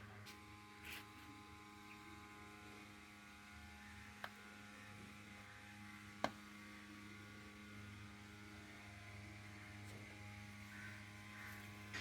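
Faint steady electrical hum with a few small clicks, two sharp ticks about four and six seconds in.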